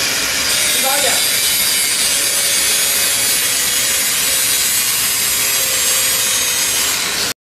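Angle grinder grinding the welded seam of a carbon steel bakery oven belt, a steady high-pitched grinding hiss that cuts off suddenly near the end.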